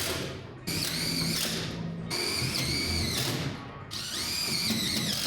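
Cordless drill driving screws into sheet metal, its motor whining in three bursts of about a second and a half each, pitch rising and falling as each screw goes in.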